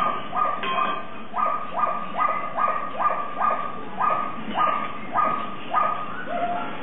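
Small puppy yapping over and over, short sharp yips at about two a second.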